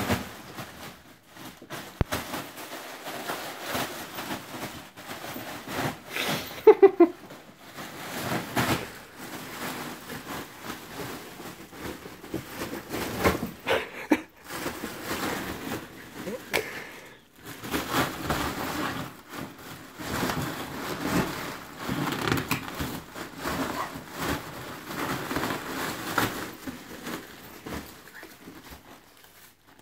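Foil balloon crinkling and rustling as a Jack Russell terrier tussles with it, with scattered clicks and a short squeak about seven seconds in.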